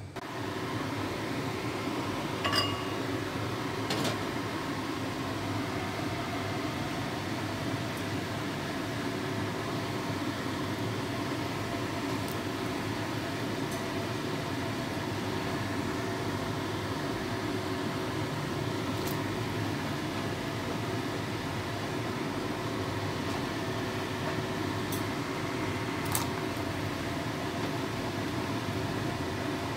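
Steady mechanical hum of a fan or motor running, with a few light clinks about two and four seconds in and again near the end.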